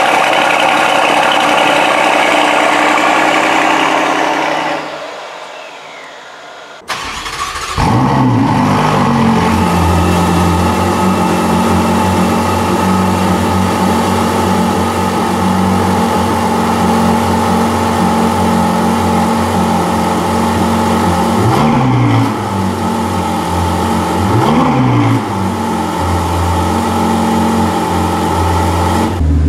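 Mercedes-AMG GLS 63's twin-turbo V8 running at the tailpipes, fading out after about five seconds. Then a Ferrari 488 GTB's twin-turbo V8 starts suddenly and settles into a steady idle, with two short throttle blips later on.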